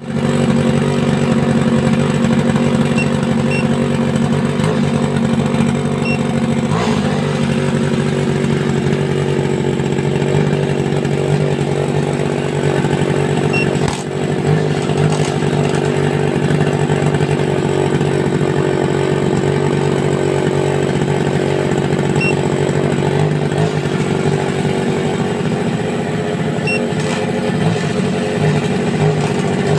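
Small gasoline engine of a handmade RC truck running steadily at a nearly constant speed. There is a slight shift in pitch about seven seconds in and a brief dip in level around fourteen seconds.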